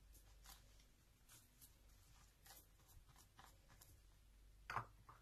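Near silence with faint soft squishes and ticks of rubber-gloved hands handling and pressing minced chicken stuffing flat in the palm, with a slightly louder one near the end.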